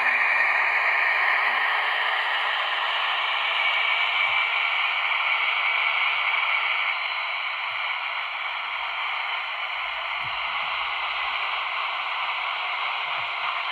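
Sound decoder in a Heljan class 58 model locomotive playing its diesel engine sound through the small onboard speaker: a steady, hissy running sound with a faint whine in it, easing slightly about seven seconds in.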